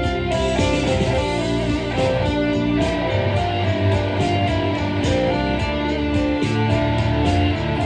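Instrumental guitar music: a guitar playing held notes at a steady level, with no singing.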